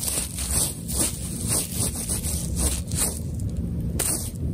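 Bubble wrap crinkling and scraping in quick, irregular strokes as a cat paws at it and a fuzzy wand toy is swept across its surface.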